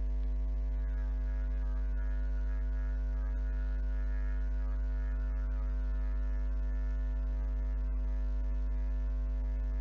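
Steady electrical mains hum: a low, even buzz with many overtones, constant throughout.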